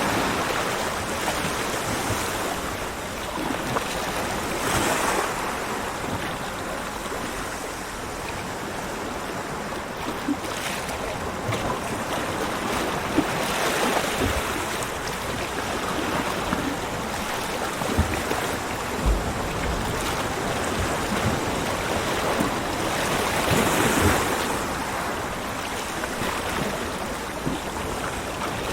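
Ocean waves breaking on a beach: a continuous wash of surf that swells up and falls back every several seconds, with bigger waves about five, fourteen and twenty-four seconds in.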